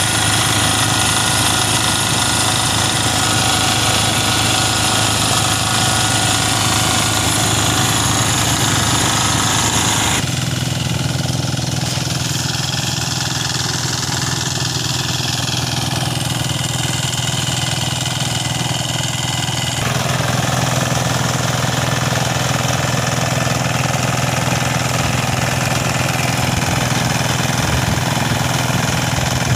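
Small single-cylinder diesel engine running steadily under load, driving a rice threshing machine. The sound changes abruptly about ten seconds in and again about twenty seconds in.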